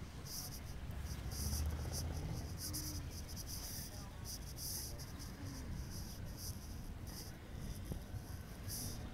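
Outdoor ambience: a low rumble with irregular short bursts of high-pitched insect buzzing.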